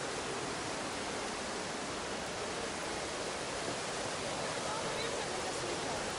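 Rushing water of a mountain gorge stream and its waterfalls, a steady, even rush of noise.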